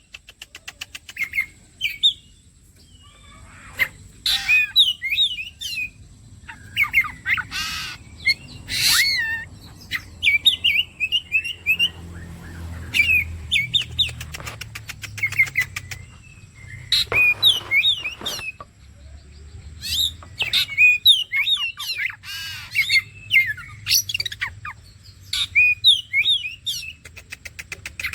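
Oriental magpie-robin (kacer) singing: varied whistled phrases that rise and fall, repeated every second or two, with quick buzzy rattles between them.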